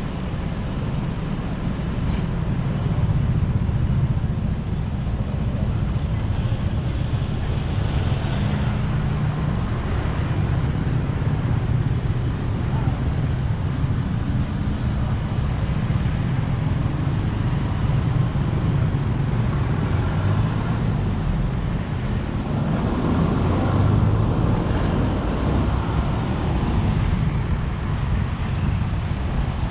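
Steady low rumble of road traffic and engine noise, heard from a vehicle moving through town traffic.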